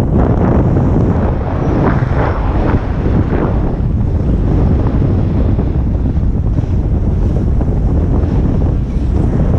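Wind buffeting the microphone of a camera carried down a ski slope at speed. Under it is the hiss and scrape of edges sliding over packed snow, strongest about two to three and a half seconds in.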